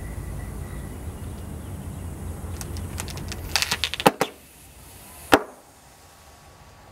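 LiPo battery pack being charged to failure, popping and crackling as its cells swell and the foil pouch bursts. A quick run of sharp cracks comes about three to four seconds in, the loudest just after four seconds, then one more sharp pop a little over a second later.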